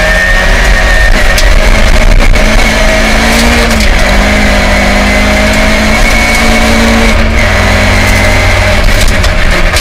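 Rally-prepared 1979 Ford Escort Mk2 with a Connaught Warrior 2.4 engine, heard from inside the cabin, running hard at high revs on a gravel stage. Its pitch steps between gears, with a few sharp knocks along the way.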